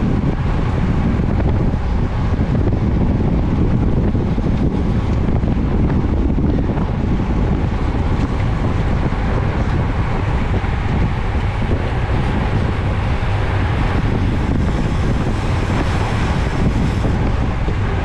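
Wind buffeting a bike-mounted camera's microphone while the bike rides at race speed: a loud, steady, low rumble with no breaks.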